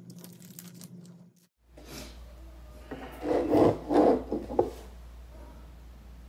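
Toast being chewed close to the microphone, with a few loud, rough crunching bursts from about three seconds in to just before five seconds.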